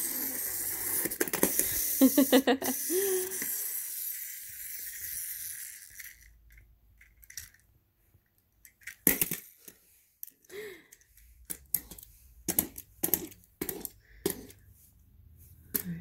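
Wind-up toy helicopter from an Usborne board book whirring as its clockwork motor runs down, fading out about six seconds in. Then scattered clicks and knocks as the toy is handled.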